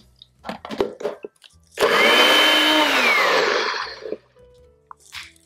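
A few clicks as the NutriBullet cup is fitted onto its motor base, then the NutriBullet blender runs loudly for about two seconds, blending frozen cherries with water. Its whine drops in pitch as the motor winds down and stops.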